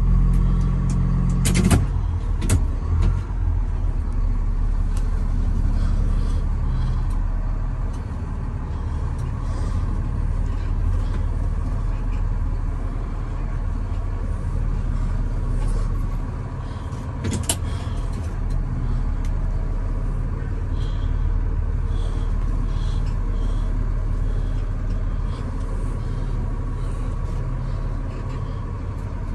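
Box truck engine running, heard from inside the cab as a steady low rumble while the truck is being backed up. A sharp knock comes about two seconds in and another around seventeen seconds.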